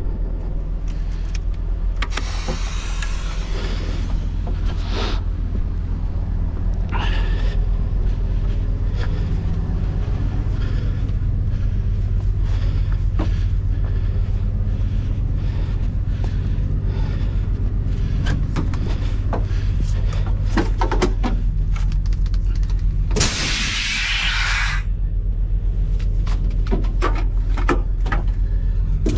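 Scania S770's 16-litre V8 diesel running steadily at low revs. Short bursts of loud hissing come about two seconds in and again around seven seconds, with the loudest and longest about six seconds before the end. Several clicks and knocks follow near the end.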